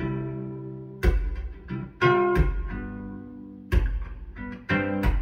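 A recorded song playing through KEF LS60 Wireless speakers in a room: an instrumental stretch of guitar chords struck about once a second and left to ring, with deep bass under each stroke.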